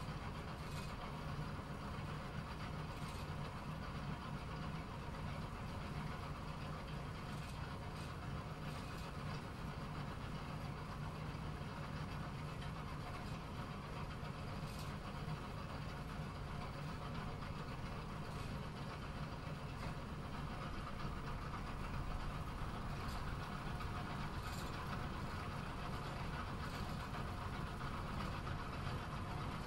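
Bowling alley ambience: a steady low rumble with a few faint, scattered clatters of pins.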